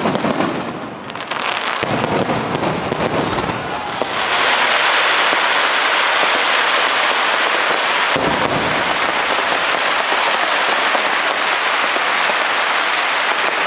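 Fireworks going off: sharp pops and crackles for the first few seconds, then from about four seconds a steady, dense hiss that carries on.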